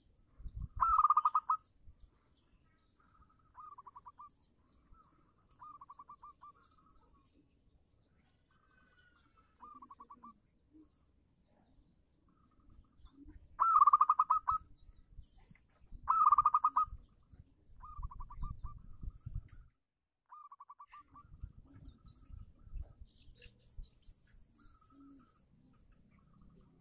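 Zebra dove (perkutut) cooing: short trilled phrases of rapid staccato notes, three of them loud and several fainter ones in between.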